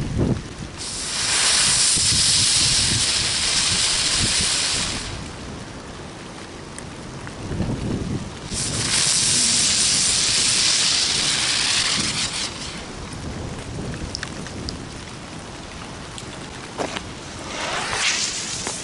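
Fireworks hissing and crackling in two long spells of about four seconds each, then a few sharp cracks and a shorter hiss near the end.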